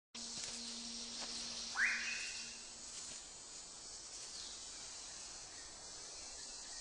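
Tropical rainforest ambience: a dense, steady high-pitched insect chorus, with one bird call that sweeps sharply upward and holds briefly about two seconds in.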